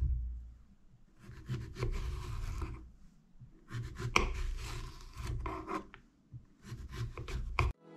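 Kitchen knife slicing a zucchini lengthwise on a wooden cutting board: two long cutting strokes about a second and a half each, with light knocks of the knife and pieces on the board.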